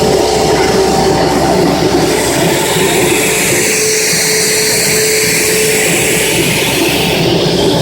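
Plastic pipe extrusion machine running: a loud, steady mechanical noise with a constant whining hum.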